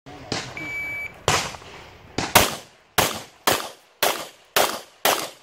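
A shot timer's start beep, one short high tone about half a second in. It is followed by a string of about eight pistol shots, fired roughly half a second apart.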